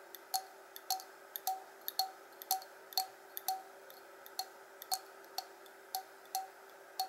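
Small plastic propellers on a tiny-whoop drone being turned by hand, with faint sharp ticks about twice a second as the blades tap the duct guards.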